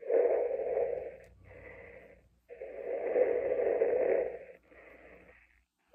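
Darth Vader-style respirator breathing coming through a small speaker, as from a Vader mask's voice-changer: two slow breath cycles, each a loud hissing breath followed by a softer one.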